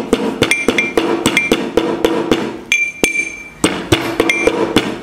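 Metal rod pounding vitamin C tablets to powder in a small steel cup: rapid sharp taps and clinks, with one strike about two-thirds of the way through leaving the cup ringing for about a second. Background music with a steady beat plays underneath.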